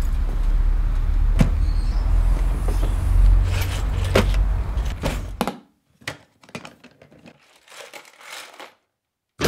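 Handling sounds of a vehicle door and a plastic toolbox: a few sharp clicks and knocks over a low outdoor rumble. About halfway through, the rumble cuts out, leaving quieter scattered clicks and rattles of tools shifting in the toolbox, which fade out just before the end.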